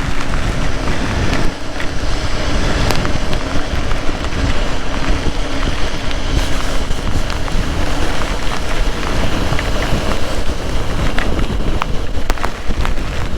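Heavy rain and wind on a rider's microphone during a motorcycle ride: a loud, steady rush with many sharp ticks of raindrops hitting the mic, which the rider thinks is getting wet.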